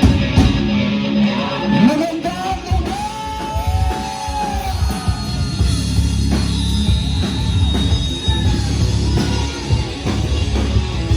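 Rock band playing, with drums, electric guitar and a singing voice.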